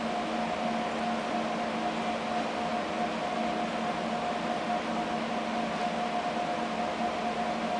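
Steady mechanical hum with a constant mid-pitched tone over an even hiss, unchanging throughout, like a fan or ventilation running; no bang or fire sound is heard.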